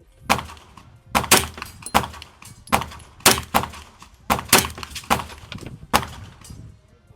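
Unsuppressed 9mm shots with 115-grain ammunition, fired in a quick string of about ten, some coming in close pairs, each a sharp crack with a short echo.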